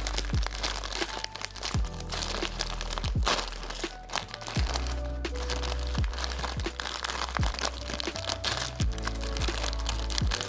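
Crinkling and crunching of a plastic instant-noodle packet (Samyang Buldak) being handled and pressed, the dry noodle block crackling inside, over background music with a steady beat.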